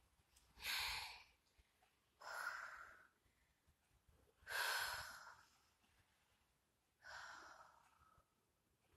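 A woman taking four slow, deep, audible breaths a couple of seconds apart as she stands upright recovering between yoga backbends.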